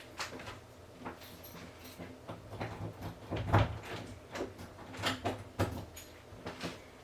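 Scattered light knocks and rustles of things being handled and moved, with a heavier thump about three and a half seconds in.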